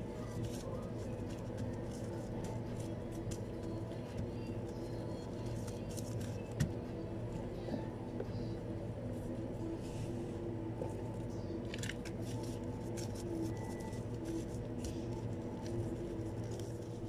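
Steady low machine hum of kitchen equipment, with faint light taps and rustles of gloved hands pressing sushi rice onto nori on a bamboo rolling mat, and one sharp knock about six and a half seconds in.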